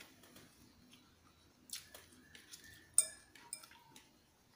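Fork clinking and scraping against a bowl of noodles: a few light clicks and ticks, the sharpest about three seconds in.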